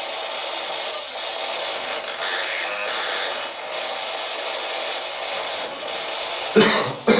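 Steady hiss of radio static that shifts in choppy steps, typical of a spirit box sweeping through stations, with two short louder bursts near the end.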